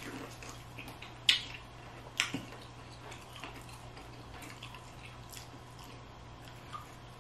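Wet mukbang eating sounds: chewing and lip smacking over saucy seafood, with scattered small clicks and two sharper clicks about a second and two seconds in.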